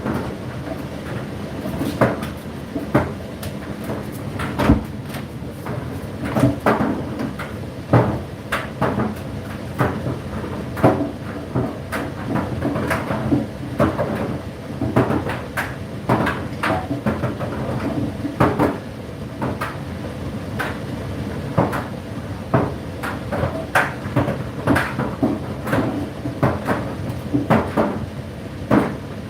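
Indesit IDC8T3 condenser tumble dryer running mid-cycle: a steady motor and fan hum with laundry tumbling in the turning drum, giving many irregular knocks and clatters several times a second.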